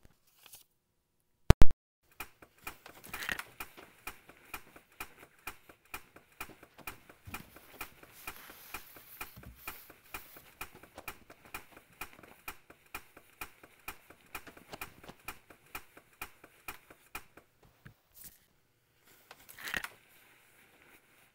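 A steady run of sharp clicks, about two a second, after one loud snap near the start. The clicks stop a few seconds before the end, and a short rustling burst follows near the end.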